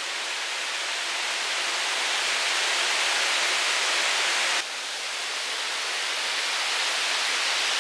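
Steady rush of falling water that drops suddenly in level a little past halfway, then slowly builds back.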